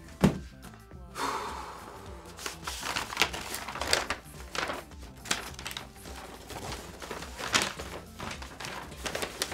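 Rustling and crinkling of wrapping paper as a shoebox is unpacked, after a single thump from the box about a quarter second in. Background music plays underneath.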